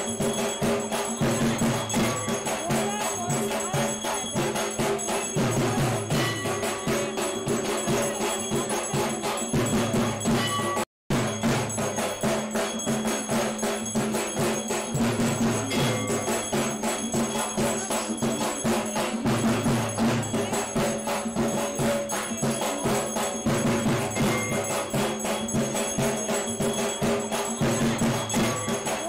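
Music with a steady, fast percussion beat and bell-like tones. It cuts out for a moment about eleven seconds in.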